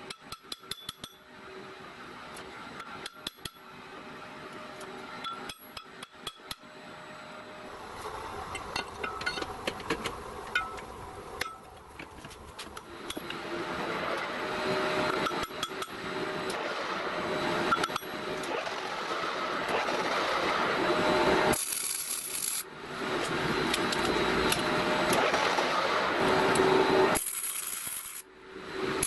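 Metal hammer tapping a large steel flange to seat it true in a lathe chuck: a string of sharp separate knocks. Then the lathe cutting steel, a rough scraping noise that grows louder, and near the end a short stretch of welding crackle.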